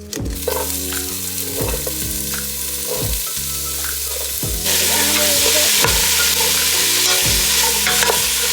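Garlic sizzling as it fries in hot olive oil in a soup pot, a steady hiss that grows louder a little over halfway through.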